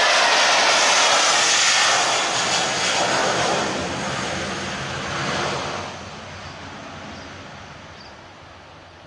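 Jet airliner engines roaring as the plane passes close by, then fading away. The roar weakens from about two seconds in and drops off sharply around six seconds.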